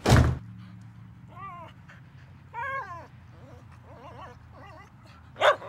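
A young pet animal crying three times in high, wavering cries, with a sharp knock at the very start and another near the end.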